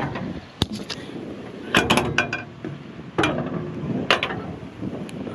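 Metal clicks and clunks from the engine hood latch and hood of a Caterpillar 316E excavator being opened by hand: a sharp click, a quick run of clatters about two seconds in, then single knocks.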